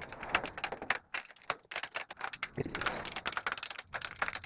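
Pliers clicking and scraping on the nut and bolt of a wheel bracket at the foot of a metal gate as the nut is tightened, an irregular run of many quick metal clicks.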